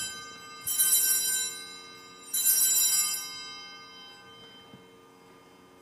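Altar bells (a cluster of small Sanctus bells) rung by shaking at the elevation of the consecrated host: the end of one ring fades, then two more rings follow about a second and a half apart, each jangling brightly and fading over a second or two.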